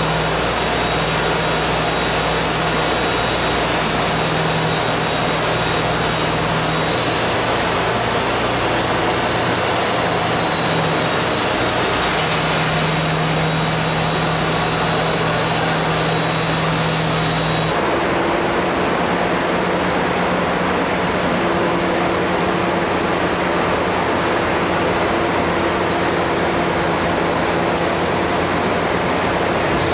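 Steady machinery drone and hiss in a railway maintenance workshop, with low steady hums and a faint high whine underneath. The mix of hums changes abruptly a little over halfway through.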